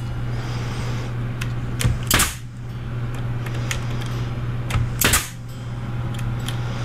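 Pneumatic 18-gauge stapler firing twice, about three seconds apart, driving 1-inch staples through a half-inch plywood back panel into a cabinet box, over a steady low hum.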